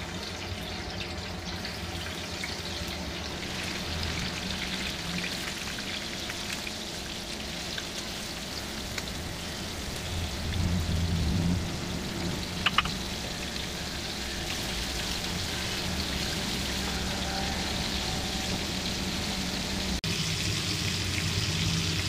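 Masala-coated prawns sizzling and spattering steadily as they shallow-fry in hot oil in a pan. A pair of sharp clicks comes a little past the halfway point.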